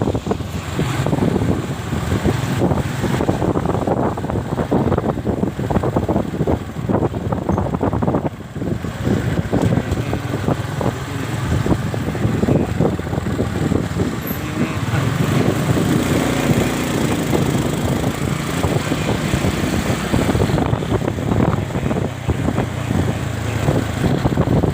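Motorcycle running along the road, with steady engine sound and wind buffeting the microphone.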